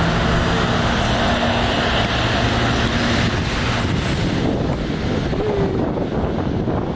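Wind buffeting the microphone, a loud rumbling rush with a faint steady low hum under it in the first half. The rush eases in its upper range in the last couple of seconds.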